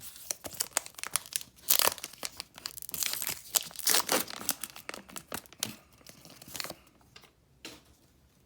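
Foil wrapper of a trading-card pack being torn open and crinkled, a dense crackling that runs for about seven seconds and dies away near the end.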